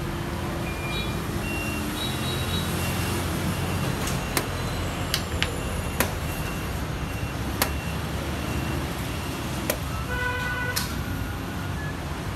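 Steady low rumble of street traffic, broken by about seven sharp clicks as xiangqi pieces are set down on the wooden board and the digital chess clock's buttons are pressed.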